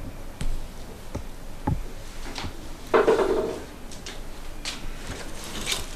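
Scattered light clicks and knocks from a wooden door being handled, with a louder scrape or creak about three seconds in.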